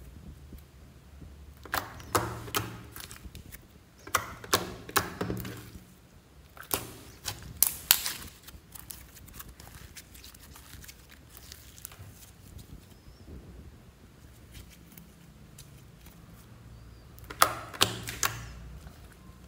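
Glitter slime being pressed, poked and stretched by hand, giving bursts of sharp, sticky clicks and pops with quieter stretches between.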